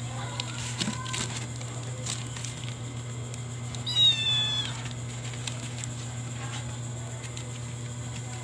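Cat scrabbling and rustling about in a cardboard box, then one short, high-pitched meow about four seconds in that falls slightly in pitch, the loudest sound. A steady low hum lies underneath.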